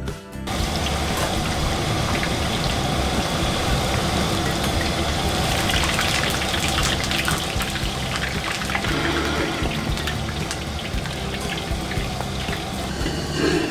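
Food deep-frying in a wok of hot oil, a steady bubbling hiss over the low rumble of a gas wok burner, with a metal spatula now and then scraping and stirring in the wok. It starts about half a second in, as music cuts off.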